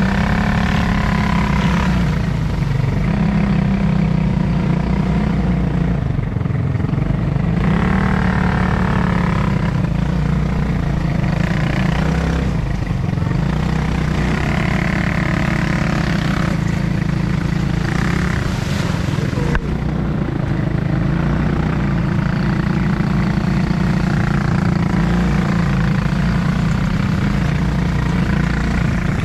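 ATV engine running steadily while being ridden, with indistinct voices over it.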